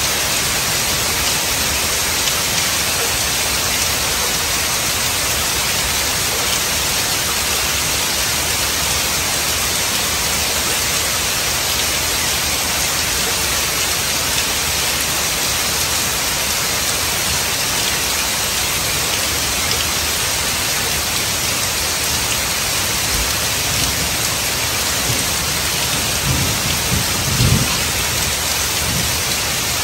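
Heavy rain falling steadily on wet asphalt and trees, an even hiss throughout, with a brief low rumble near the end.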